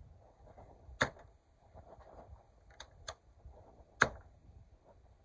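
Metal toolbox doors and latches on a wrecker's truck body being handled: two sharp metallic clacks about three seconds apart, each ringing briefly, with a couple of lighter clicks between.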